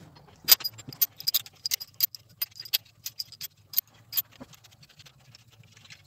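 Sharp metallic clicks and clinks, about three a second, that stop a little past halfway, from steel main bearing caps, bolts and hand tools being worked on an engine block, over a faint low hum.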